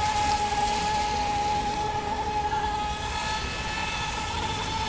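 Ecomaster Mini Mono RC mono-hull boat running at speed: a steady high-pitched motor whine over the hiss of the hull and spray on the water.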